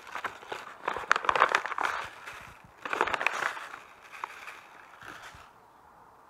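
Small plastic packet being handled and crinkled by hand, in two bursts about a second in and three seconds in, then quieter rustling.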